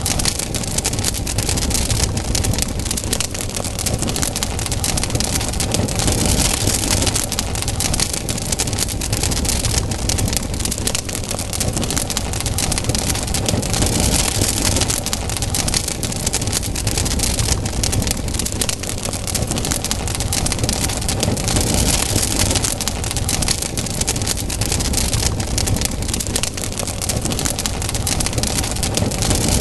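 Campfire burning: dense, continuous crackling and popping of wood over a steady hiss and low rumble.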